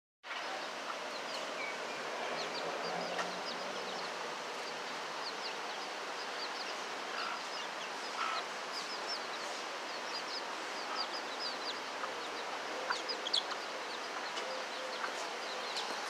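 Chickens: chicks peeping over and over in short, high, falling notes, with a hen clucking now and then, over a steady background hiss.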